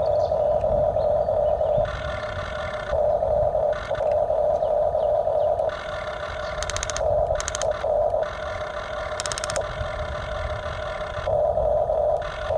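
Small electric motors of a toy RC excavator whining in stretches that start and stop every second or few, as the machine is worked. A few short bursts of rapid clicking come in the middle.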